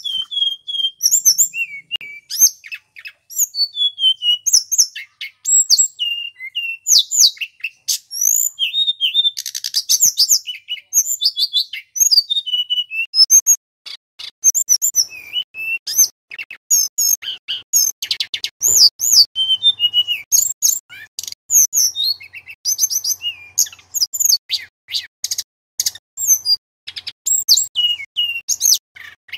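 Male tledekan gunung flycatcher singing a fast, varied song of short whistled notes and trills, with a couple of scratchy rattling passages mixed in.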